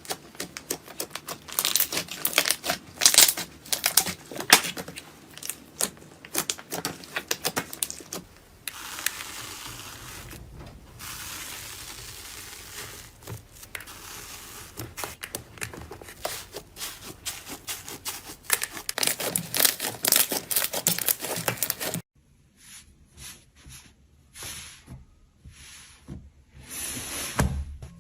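Slime being squeezed and worked by hand: dense, irregular crackling and popping clicks, with a softer, steadier rustling stretch in the middle. About three quarters of the way through the sound cuts abruptly to sparser, cleaner pops.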